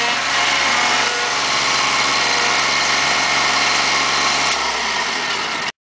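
Toro zero-turn riding mower's engine running steadily as it drives, its note falling about four and a half seconds in, then the sound cuts off abruptly.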